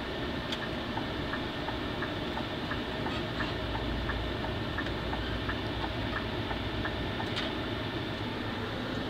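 Coach's diesel engine running low inside the cabin as the bus pulls slowly into its bay, with a light regular ticking about three times a second that stops near the end, followed by one sharper click.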